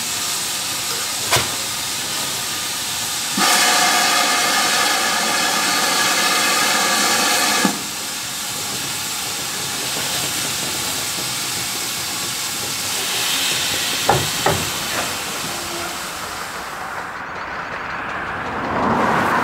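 Steam locomotive hissing steam, with one long chime-whistle blast of about four seconds a few seconds in. There are a few sharp clanks later, and a rising rumble near the end.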